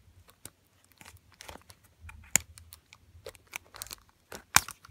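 Old ear pad and its plastic retainer ring being pulled off a Panasonic RP-HTX7 headphone ear cup: a run of small crackles, creaks and clicks of plastic and pad material, with two sharper snaps, one about two and a half seconds in and one near the end.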